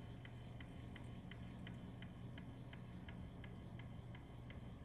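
Faint, even ticking about three times a second from a small motorized turntable rotating a display, over a low steady hum.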